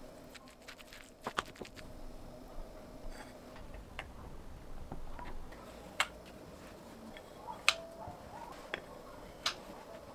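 A wooden spoon and spatula knocking and scraping against a glass mixing bowl as gochujang is added and a thick chili sauce is stirred: a few sharp clinks, the loudest about six and eight seconds in, one with a brief ring.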